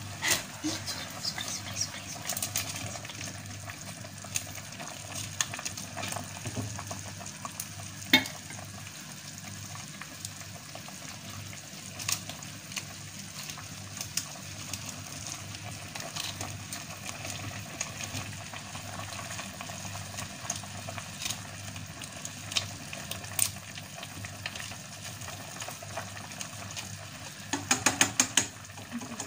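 Broth at a rolling boil in a stainless-steel pot, a steady bubbling hiss, while a spatula scrapes and taps against the pot as blocks of dried rice vermicelli are pushed down into it. A quick run of taps comes near the end.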